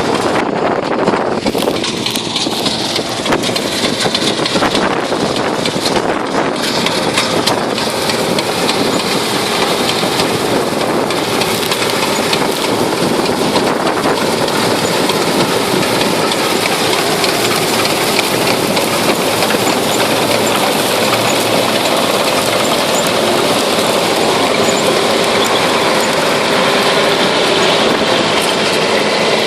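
Harvester running steadily: a loud, continuous mechanical noise from its engine and working machinery.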